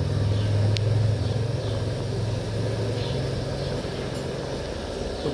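A low, steady rumble over a haze of background noise, fading after about four seconds.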